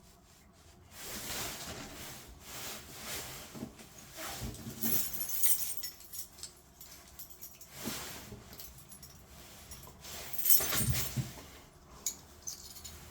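Irregular clinks, rattles and rustling from tools and small metal parts being handled, with a louder clatter about ten and a half seconds in.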